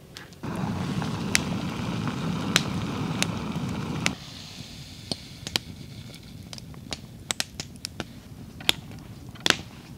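Backpacking gas-canister stove running under a pot of water at a rolling boil: a steady rushing that cuts off suddenly about four seconds in. After that the sound is quieter, with scattered sharp crackles and pops from a wood campfire.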